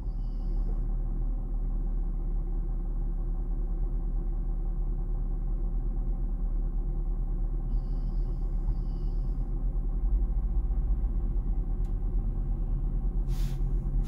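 Land Rover LR2's inline-six petrol engine idling steadily, an even low hum.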